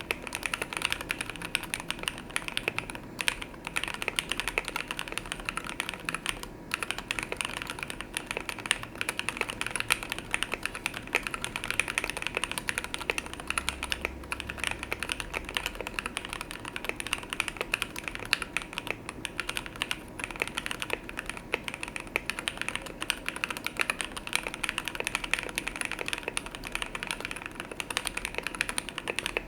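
Typing on a mechanical keyboard fitted with OEM-profile keycaps: a fast, continuous run of key clacks as a typing sound test of the keycaps.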